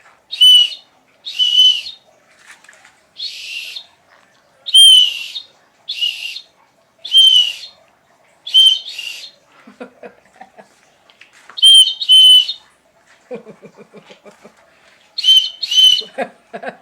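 A whistle blown in about a dozen short, loud, high-pitched blasts, several of them in quick pairs.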